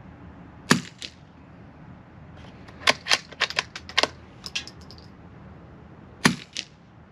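Two shots from a Savage B22 F .22 LR bolt-action rifle, each a sharp crack followed closely by a softer echo, the first a little under a second in and the second about six seconds in. Between them the bolt is worked by hand, a quick run of small metallic clicks as it is lifted, drawn back to eject and chamber a round from the rotary magazine, and closed.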